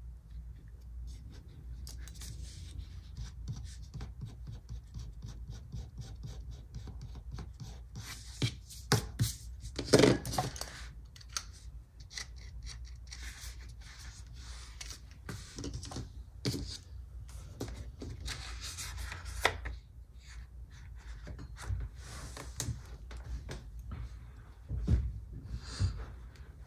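Scissors snipping through sticker paper, trimming the excess white border off a planner sticker, with paper rubbing and handling between the cuts. A faint low hum runs underneath.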